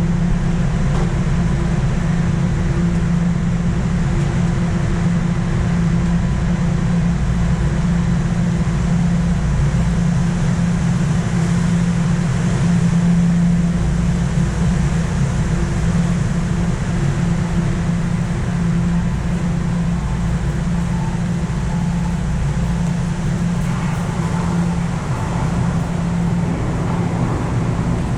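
Toronto subway train's steady hum and rumble, with a constant low electrical-mechanical tone.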